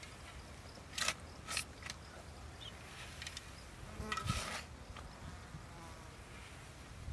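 Steel shovel digging into earth: a few short scrapes of the blade cutting the soil, and a longer scrape with a soft thud of earth being tossed about four seconds in.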